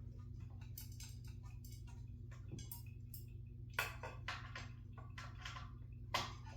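A screwdriver working the screws on a ceiling fan's blade bracket makes a run of small, light metal clicks. Two sharper clicks come about four seconds in and near the end, over a steady low hum.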